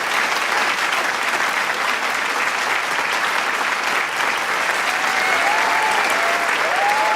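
Large crowd applauding steadily: dense, continuous clapping, with a few voices calling out near the end.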